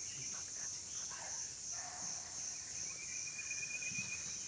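Steady high-pitched drone of insects in the forest.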